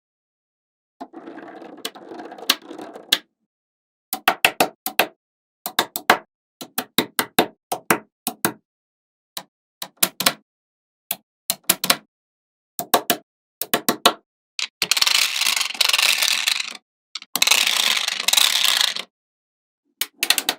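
Small magnetic balls clicking as they snap onto one another, in quick runs of several clicks at a time. A softer rattle of balls comes about a second in, and two longer, louder rattles of many balls together come about three-quarters of the way through.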